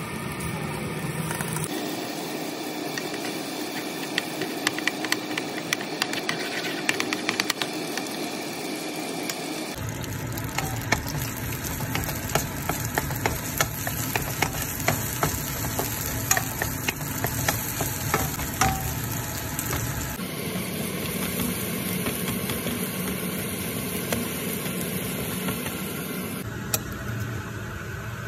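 Chopped garlic sizzling as it fries in butter in a nonstick frying pan, with a spatula clicking and scraping against the pan as it is stirred. The sound changes abruptly several times where the footage is cut.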